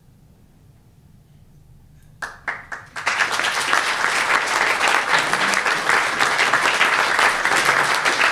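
Audience applauding: after a quiet start, a few separate claps about two seconds in, then the whole room breaks into steady applause.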